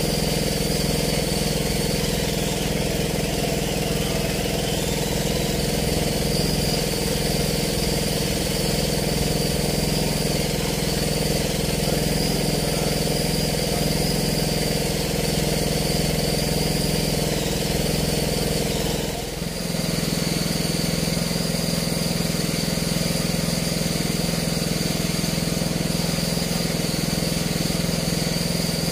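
An engine running steadily; its tone changes abruptly after a brief dip about nineteen seconds in.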